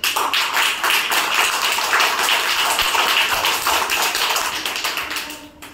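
A group of young children applauding, a dense, fast patter of many small hands clapping that dies away near the end.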